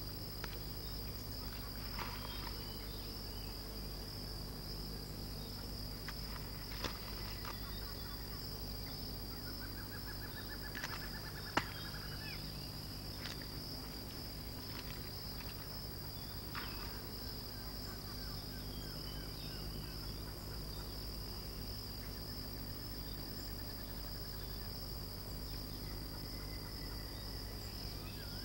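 Steady high-pitched insect chorus, a continuous even trilling, over a low constant hum, with a few faint clicks and a short rattling trill near the middle.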